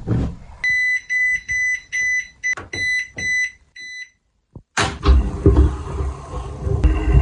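Household appliance's electronic signal beeping: about eight short high beeps, roughly two a second. After a brief pause, a loud rumbling noise starts about five seconds in.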